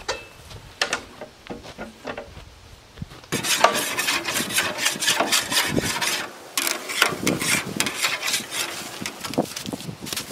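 Wire grill brush scraping the grate of an offset barrel smoker in quick repeated strokes, starting about three seconds in after a few scattered clicks and knocks.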